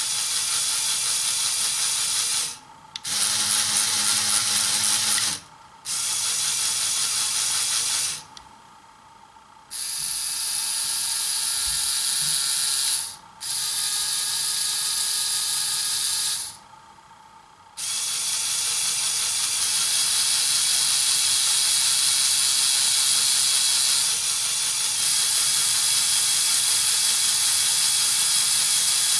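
LEGO tank chassis running on a stand: its electric motors drive the Technic gear train and plastic track links, giving a high mechanical whir with gear and track rattle. It starts and stops several times in runs of two to three seconds, then runs without a break from about two-thirds of the way in.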